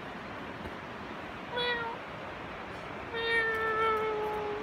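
Two meows: a short one about one and a half seconds in, then a long, drawn-out one from about three seconds, its pitch holding steady and sinking slightly toward the end.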